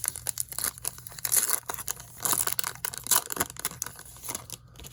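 Trading card pack wrapper being torn open and crinkled by hand: dense rustling and crackling with sharp snaps, stopping abruptly near the end.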